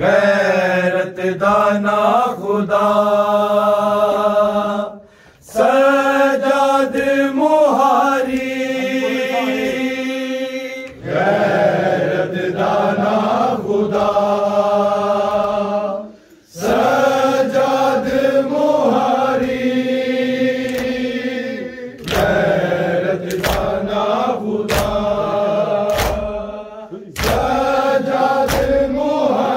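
A group of men chanting a noha (Shia lament) together, in sung phrases a few seconds long with short breaks between them. In the second half, sharp slaps of matam chest-beating keep time, a little more than once a second.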